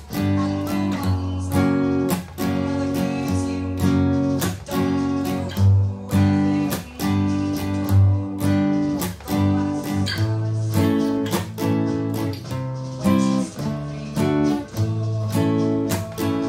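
Steel-string acoustic guitar strummed in a steady rhythm of full chords, with no singing.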